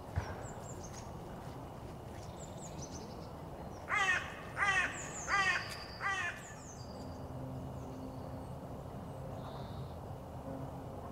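A crow-like bird gives four harsh caws in quick succession, about two-thirds of a second apart, each falling in pitch. Small birds chirp faintly with high thin notes in the background.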